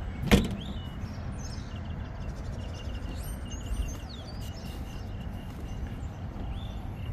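Birds chirping over steady low outdoor background noise, with one sharp knock just after the start.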